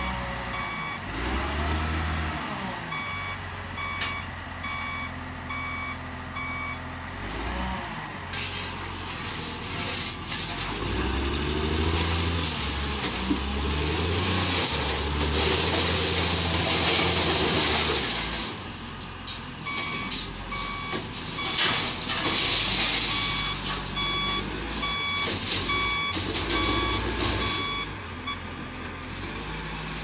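Caterpillar 938G wheel loader's diesel engine working, its speed rising and falling, with the reversing alarm beeping about twice a second in two runs, early on and again in the second half. A louder, rougher stretch of noise in the middle as the loader works the rubble.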